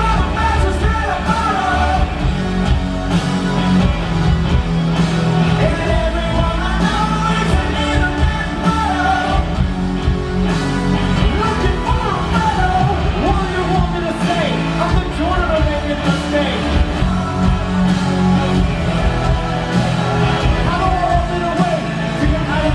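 Live rock band playing loud and steady: a lead singer over electric guitars and a drum kit, heard from the audience in a large hall.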